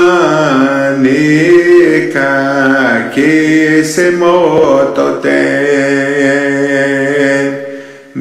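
A prayer song for rain, chanted by a voice in long held notes that glide between pitches, over a steady low drone; the phrase fades away near the end.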